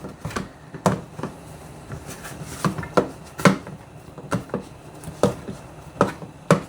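Dumpling dough of flour and cornmeal being worked by hand, with a dozen or so irregular knocks and thuds as it is pressed and turned.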